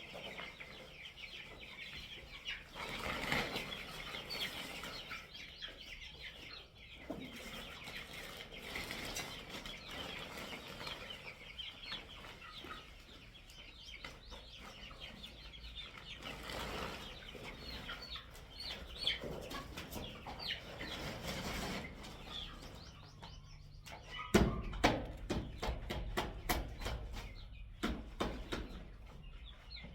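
Chickens clucking with many short, high peeps from chicks. Near the end comes a quick run of loud knocks and clatter.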